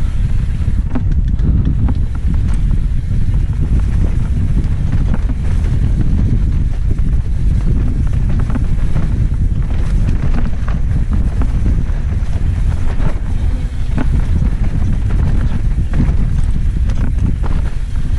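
Wind buffeting the microphone of a mountain bike descending fast on a rough dirt trail, with a steady low rumble and frequent clicks and rattles from the bike and tyres over rocks and roots.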